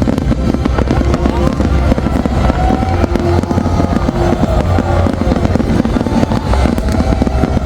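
Large fireworks display: a continuous barrage of overlapping bursts and bangs over a heavy low rumble.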